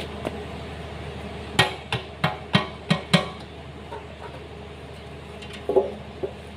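Sharp metal knocks of a hammer tapping on a Komatsu four-cylinder engine during teardown: six quick strikes about three a second, then a pause and two more near the end.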